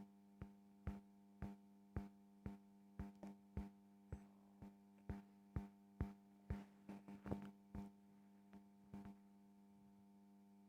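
Near silence: a faint steady electrical hum with a run of soft, irregular clicks, one or two a second, that stop about nine seconds in.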